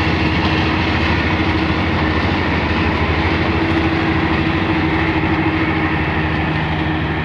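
Kubota DC-35 combine harvester running steadily, its diesel engine and threshing machinery making a continuous loud mechanical noise with a steady hum.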